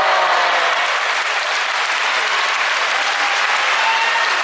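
Sumo arena crowd applauding steadily, with a few voices calling out over the clapping.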